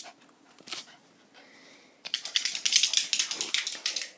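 A small long-haired dog's claws clicking and scuffling on a hardwood floor as it scrambles about close to the microphone. A few clicks come first, then a dense rapid clatter from about two seconds in until just before the end.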